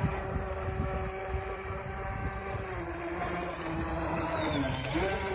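Electric motor of a radio-controlled model boat running with a steady whine. Its pitch sags over a second or two and then jumps back up near the end. Low wind rumble underneath.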